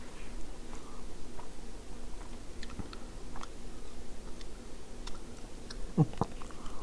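Close-up eating sounds of macaroni and cheese: soft chewing with small scattered clicks of the fork against the bowl, and a couple of louder mouth sounds close together about six seconds in as a forkful goes into the mouth.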